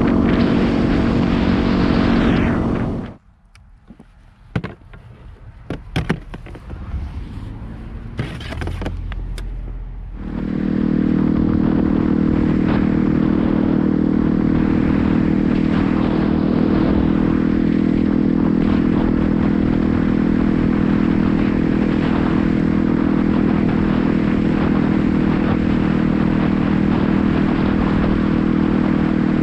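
Yamaha WR250R's single-cylinder 250 cc engine running at a steady cruise, with a rushing noise over it. About three seconds in the sound drops away to a quiet stretch of scattered clicks and knocks lasting about seven seconds. The engine and rushing noise then come back and run evenly.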